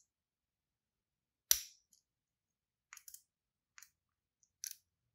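Steel lock pick and tension tool working the pins of an American Lock 1100 pin tumbler padlock: one sharp click about one and a half seconds in, then a few faint ticks.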